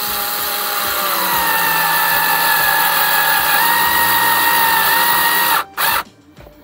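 Small cordless electric screwdriver driving a screw through a thermostat mounting plate into a wall panel. It gives a steady motor whine that shifts in pitch a couple of times as the screw bites. The whine stops about five and a half seconds in, followed by a short final burst.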